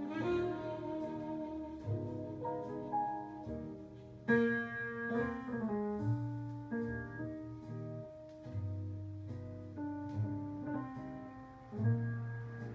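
Instrumental easy-listening music from a vinyl LP of saxophone mood music, playing on a turntable: chords changing every second or so over low bass notes.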